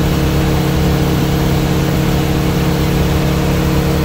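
Kawasaki KRX 1000 side-by-side's parallel-twin engine running steadily at about 4,000 rpm, its normal cruising speed, heard from the seat. Both 14-inch roof fans are at full blast, but their sound is lost under the engine.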